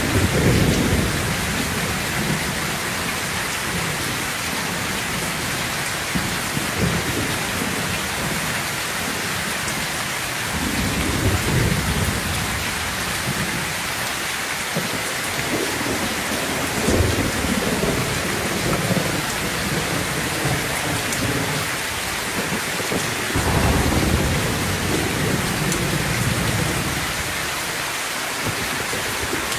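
Heavy rain pouring steadily, with several low rolls of thunder rumbling in and fading away, about four times over the stretch.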